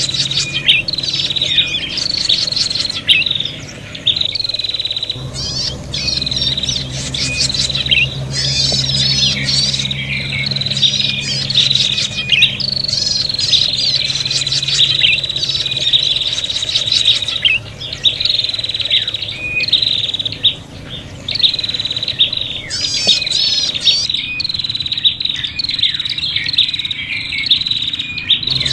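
Prinias (prenjak) calling excitedly in a noisy chorus of rapid high chirps and trills that repeat in bursts with short pauses. This is the agitated, quarrelsome calling used as a lure call to draw prinias in.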